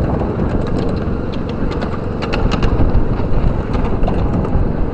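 Miniature ride-on train rolling along its track: a steady low rumble of the moving train, with a run of sharp clicks and rattles about two to three seconds in.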